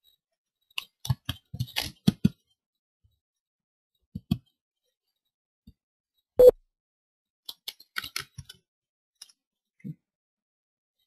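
Computer keyboard keystrokes and mouse clicks in short scattered clusters. The sharpest single knock comes about six and a half seconds in.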